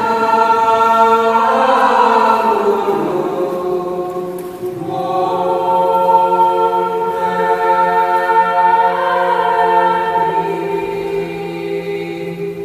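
A group of voices singing slow, long-held chords without instruments, in two long phrases with a short break about four and a half seconds in.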